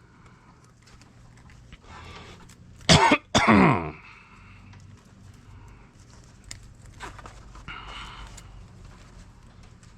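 A man coughs twice in quick succession about three seconds in, over faint clicks and rustling.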